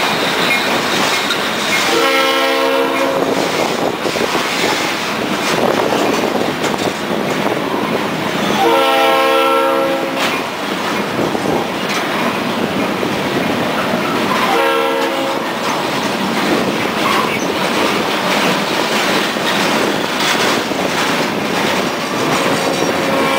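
Empty log flatcars of a freight train rolling past with a steady rumble and the clickety-clack of wheels over rail joints. A train horn sounds four times, long, long, short, long: about 2 s in, about 9 s in, briefly about 15 s in, and again near the end.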